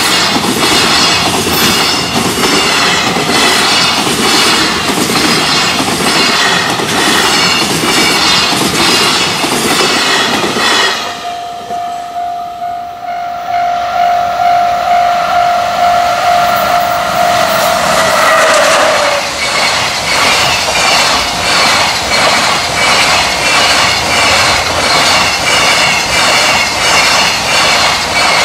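Freight container trains passing at speed over a level crossing, wheels clattering over the rail joints in a fast, even rhythm. Partway through the clatter drops away and a locomotive horn sounds one long steady note for about seven seconds, sinking in pitch at the end as it goes by; then a second container train rushes past with the same rhythmic clatter.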